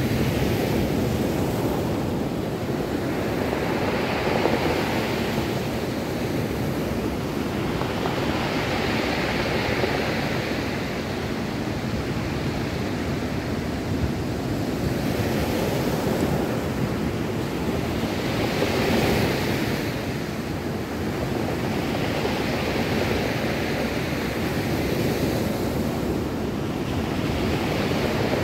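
Ocean surf breaking and washing over a pebble beach, swelling every five seconds or so, with wind buffeting the microphone.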